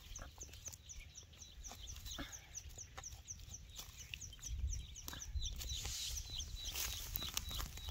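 A stick poking and scraping in dry soil and grass, with clicks throughout and a louder scratchy rustle in the second half. Behind it, a bird gives short, high, falling chirps about two or three times a second.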